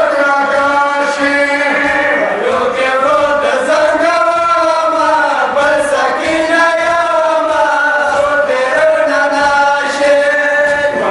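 Men chanting a noha, a Shia mourning lament, led by one male voice over a microphone, in long, wavering held notes.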